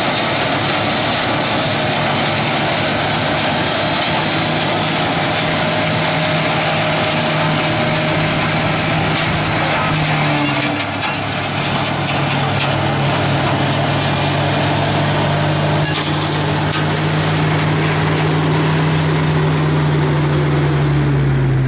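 Giant articulated mini loader's engine running steadily under load while its hydraulic flail mower attachment chops through tall weeds, with a steady hiss over the engine hum. The engine note dips briefly about halfway through, then climbs back up.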